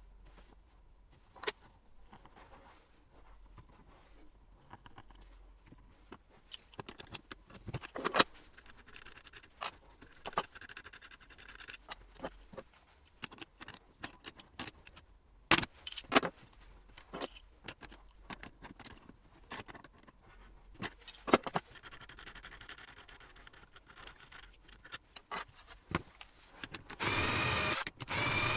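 Workbench handling noises: scattered clicks, knocks and metallic clinks as steel rods, wooden parts and tools are moved and adjusted. Near the end a cordless drill starts running steadily.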